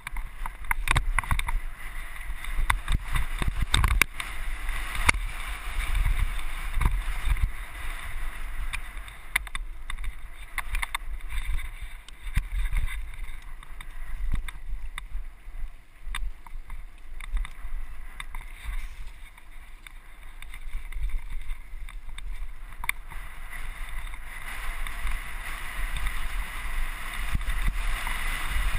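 Wind buffeting a handlebar-mounted action camera on a mountain bike as it runs fast over a rocky gravel trail: a steady rumble of wind and tyre noise with frequent sharp knocks and rattles from the bike over stones.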